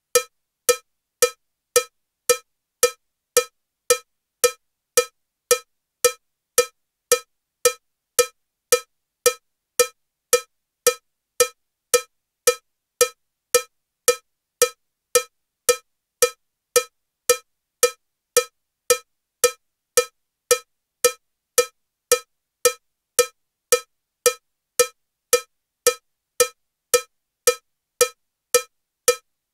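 Metronome clicking in a cowbell sound at 112 beats per minute: one short, even cowbell hit on every beat, a little under two a second, with silence between.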